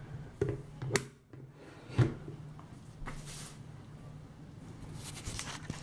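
Plastic Play-Doh toy parts being handled: a few light clicks and knocks, the loudest about two seconds in, with soft rubbing and brushing between them.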